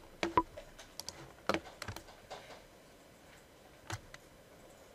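Computer mouse and keyboard clicking in irregular short clicks: several in the first two seconds, then a pause and a couple more about four seconds in.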